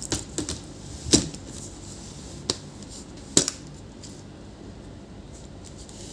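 Acer TravelMate laptop base and its metal hinges being handled while the repaired hinge is tried: a handful of sharp clicks and knocks, the loudest about a second in.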